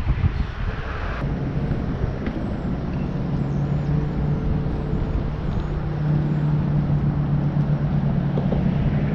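Road traffic on an overhead concrete bridge: a steady engine hum over a deep rumble, setting in about a second in and holding on.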